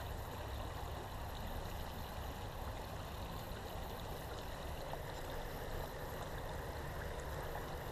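Faint, steady trickle of creek water over a low rumble.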